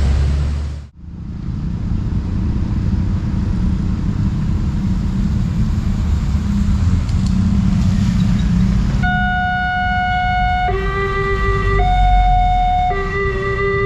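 Steady traffic rumble. About nine seconds in, the railway level crossing's electronic warning siren starts, alternating between a higher and a lower tone roughly once a second, signalling an approaching train.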